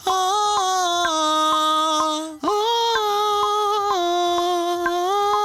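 A person singing a dry vocal take with no reverb yet, holding long sustained notes in two phrases with a short break between them about two and a half seconds in.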